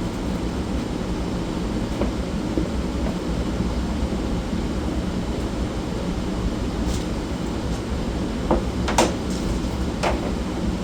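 Steady low rumble or hum, with a few light clicks or knocks near the end.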